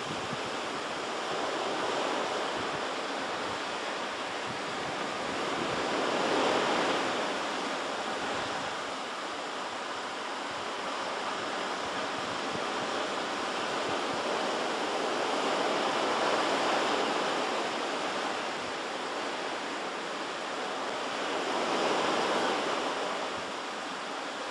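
Pacific surf washing into a rocky cove: a steady wash of noise that swells three times as waves break and run up the shore.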